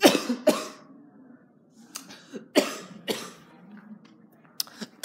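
A boy coughing in short, harsh fits: two coughs at the start, another group about two and a half seconds in, and a smaller one near the end. He has a cold.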